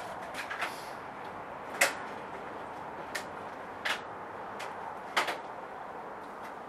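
A few short, sharp knocks and clicks, the loudest about two seconds in and again just after five seconds, over a low steady hiss.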